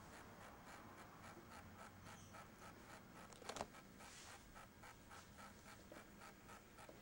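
Near silence: faint room noise with a soft, regular scratching and a brief click about three and a half seconds in.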